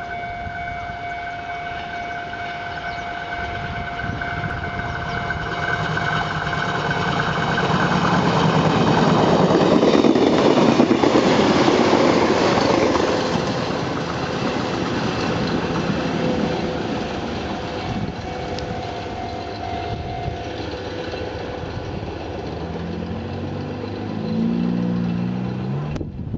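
Chichibu Railway 1000 series electric multiple unit (ex-JNR 101 series) running past. It grows louder as it approaches, is loudest about ten seconds in as it rumbles and clatters by, then fades as it pulls away.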